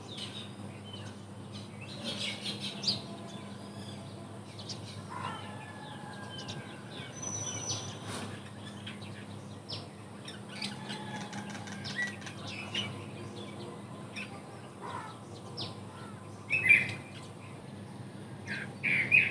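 Scattered short, high, bird-like chirps and thin clicks over a low steady hum, with the loudest chirps near the end.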